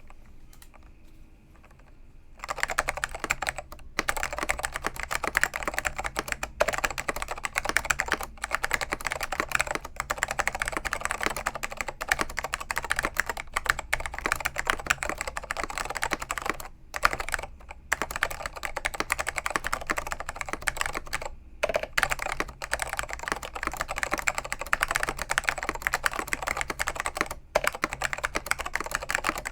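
Apple Extended Keyboard with tactile orange Alps switches, dry-lubed, in a foam-dampened case, being typed on fast and continuously with a deep clack. The typing starts about two seconds in and pauses briefly a few times.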